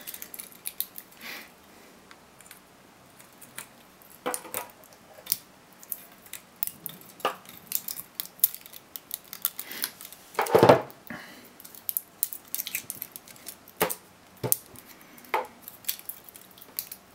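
Pliers gripping and snipping nickel strips and wires off cylindrical 18650 lithium-ion cells: scattered metal clicks, snips and clinks as the cells are handled, with one louder knock about ten seconds in.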